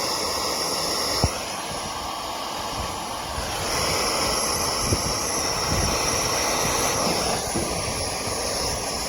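A blowtorch burning steadily, its flame a continuous rushing hiss as it heats a rusted bolt to free it. A couple of faint clicks sound over it.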